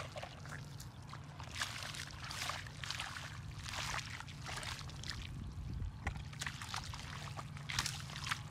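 Bare feet treading through shallow muddy water, a string of irregular small splashes and squelches roughly once a second.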